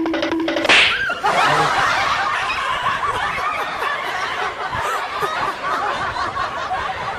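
A held musical note with a steady beat cuts off under a second in, followed by a short loud burst. Then comes a long stretch of dense, overlapping snickering and chuckling laughter from people.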